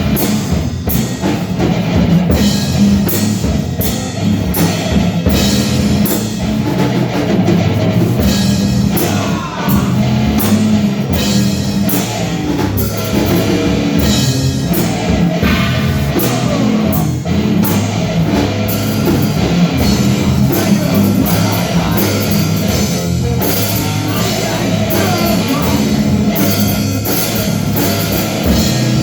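Loud rock music with a driving drum kit and distorted guitar, in a heavy metal style.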